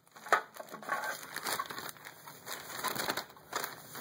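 Clear plastic packaging bag crinkling and rustling as it is handled, with several sharp crackles.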